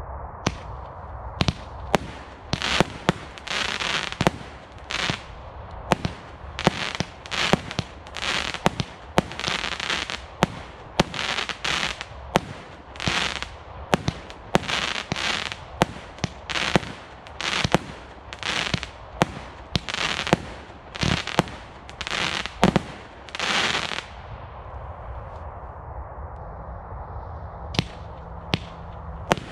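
Consumer firework cake (barrage) firing shot after shot, roughly one a second, each sharp launch bang followed by a brief hiss. It stops about 24 seconds in, and near the end a second cake starts firing with a few sharp shots.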